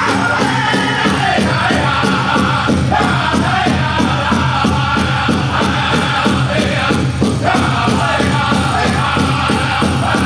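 Powwow drum group singing a chicken dance song in high voices over a fast, steady beat on a big drum.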